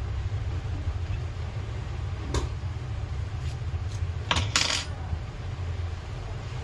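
A few light clicks and clinks of small hard objects knocking on a workbench as a hand moves over it, with a short, louder cluster of clinks about four and a half seconds in. A steady low hum runs underneath.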